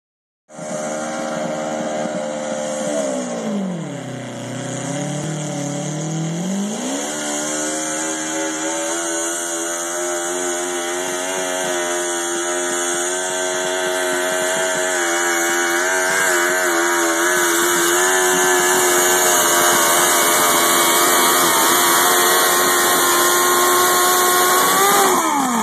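Cub Cadet garden pulling tractor's engine running flat out while dragging a weight-transfer sled. About three seconds in its pitch sags as it bogs under the load, then it recovers by about seven seconds and holds high revs, rising slightly. Near the end the pitch falls away sharply as the throttle is cut at the end of the pull.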